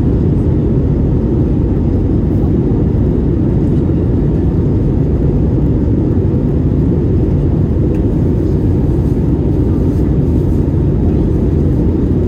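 Steady low rumble inside the cabin of an Airbus A321neo under way, the noise of its Pratt & Whitney geared turbofan engines and airflow, holding an even level throughout.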